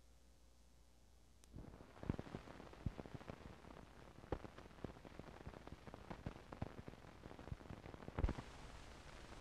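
Faint hiss with irregular crackling clicks and pops from a worn vintage film soundtrack, starting about a second and a half in, with one louder pop near the end.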